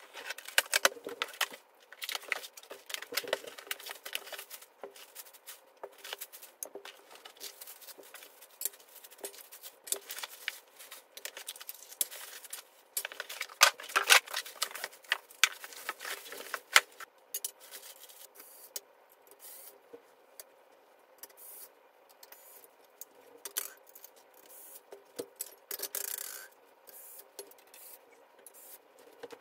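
Unpacking and assembly handling noises: a box cutter slicing packing tape, cardboard flaps and foam packing rustling and scraping, and metal desk-frame parts clicking and clattering as they are handled and fitted. Irregular sharp clicks and knocks come throughout, loudest around the middle.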